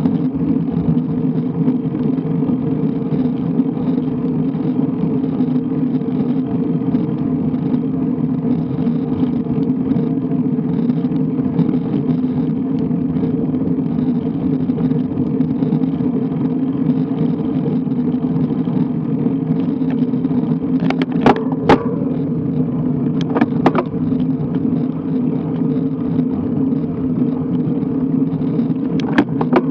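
Steady wind and road rumble from a road bike in motion, as picked up by a bike-mounted action camera's microphone. A few sharp clicks or knocks cut through about two-thirds of the way in, and once more near the end.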